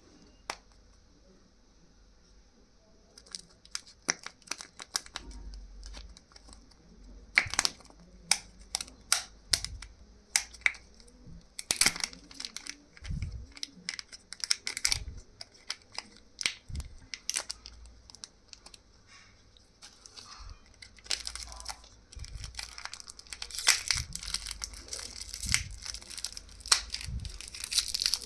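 Kinder Joy egg's wrapper being torn open and crinkled by hand: irregular crackles and rips that start about three seconds in and come thickest near the end.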